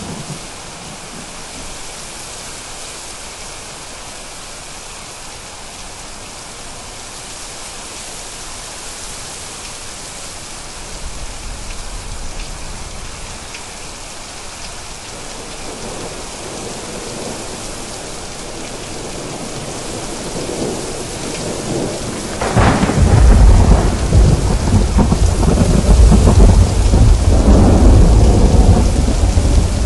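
Steady rain with thunder: a low distant rumble builds through the first half, then a sudden loud thunderclap about two-thirds of the way in rolls into a long, heavy rumble under the rain.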